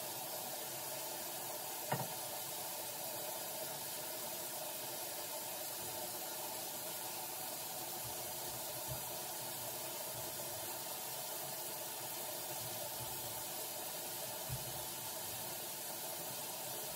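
Steady hiss of background noise, with a faint knock about two seconds in and another near the end.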